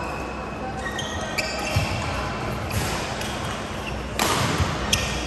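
Badminton rally in a large echoing hall: sharp racket-on-shuttlecock hits and short high squeaks of court shoes on the rubber court mat, with a brief louder rush of noise a little after four seconds in.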